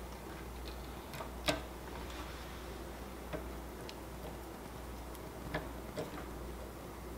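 Scattered small metal clicks and taps as a small screw and hex key are worked into a 3D printer hotend's heater block. The loudest click comes about a second and a half in, and a steady low hum runs underneath.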